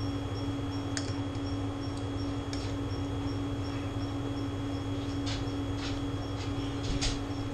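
Steel knife and fork cutting steak on a ceramic plate: a few sharp clicks of cutlery against the plate, more of them near the end, over a steady hum.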